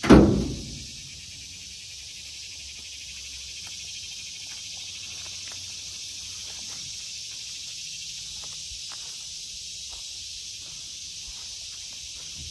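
A loud, short thump right at the start that dies away within about a second. It sits over a steady, high-pitched chorus of insects, with scattered faint clicks and rustles throughout.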